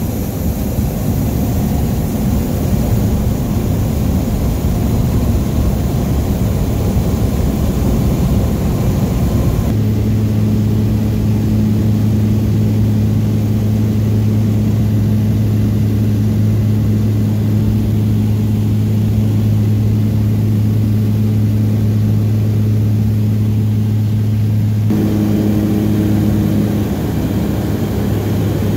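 Light high-wing propeller plane's engine and propeller heard from inside the cabin: a rough, noisy run during the takeoff roll, then, after a cut about ten seconds in, a steady cruise drone with a low hum and its overtone. The drone shifts slightly after another cut near the end.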